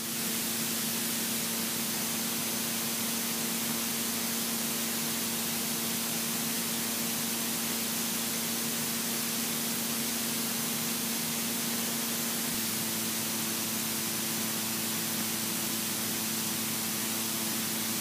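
Steady hiss of a light aircraft's cockpit intercom audio, with the Robin DR400's engine hum faint beneath it as a few steady tones in cruise. The tones shift slightly about twelve seconds in.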